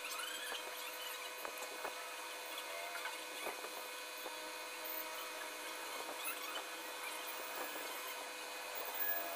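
Graphite pencil scratching and shading on drawing paper, with scattered small clicks and short squeaks, over a steady background whine.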